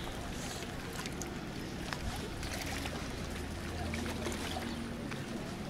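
Steady seashore background noise, an even hiss of wind and water on a rocky shore, with a few faint clicks and a faint low hum in the middle.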